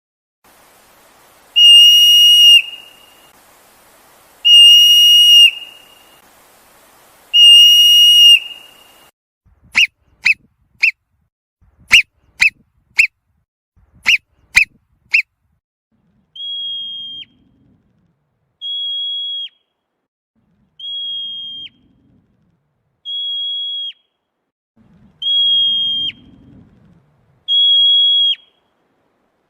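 Marmot alarm whistles: three long, high whistles about three seconds apart, then quick clusters of short chirps in threes, then a steady series of shorter whistles about every two seconds, each ending in a quick drop in pitch.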